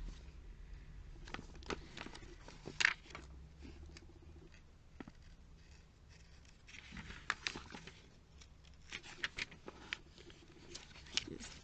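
Pages of a glossy paper catalogue being turned and handled: scattered soft clicks and rustles, with a louder rustle about three seconds in and a longer page-sliding rustle around seven seconds.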